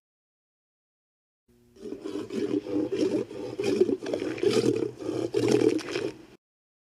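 Movie-monster growl sound effect for a yeti: one long, stuttering growl of rapid uneven pulses, starting about a second and a half in and lasting about five seconds.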